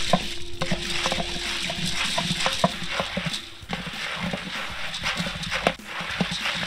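Wooden paddle stirring popcorn kernels in hot oil in a large steel kettle corn pot, the kernels rattling and the paddle clacking and scraping against the metal in irregular strokes, over a steady hiss. The kernels are still heating and not yet popping.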